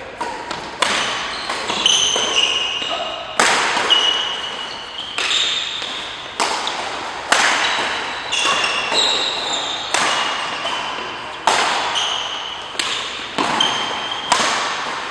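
Badminton rackets striking a shuttlecock in a fast doubles rally: sharp hits roughly every second, echoing in the hall, with short high squeaks of shoes on the court between hits.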